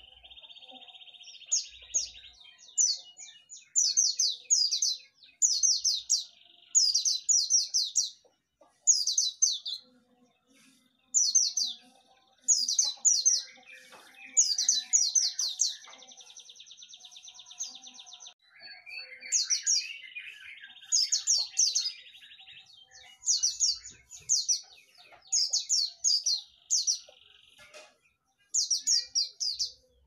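A white-eye (pleci) singing: repeated bursts of rapid, high chattering notes, broken by several longer buzzing trills a little lower in pitch, one of them at the very start.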